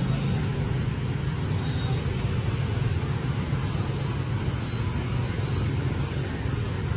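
Steady street traffic, mostly motorbikes and cars passing, heard as a continuous low rumble.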